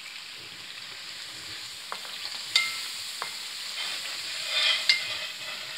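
Tomato-and-spice masala sizzling in hot oil in a metal karahi as it is fried down (bhuna), while a wooden spatula stirs and scrapes through it. A few sharp knocks of the spatula on the pan come through, with the scraping loudest near the end.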